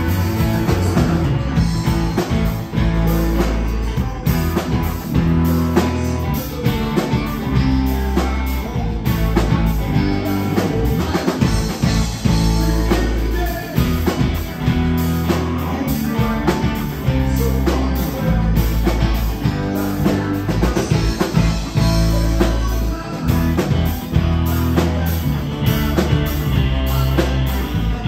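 Live rock band playing with electric and acoustic guitars, bass guitar and drum kit, the drums keeping a steady beat.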